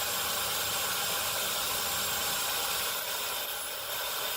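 Dyson Supersonic hair dryer running, a steady rush of blown air that dips slightly in loudness about three seconds in.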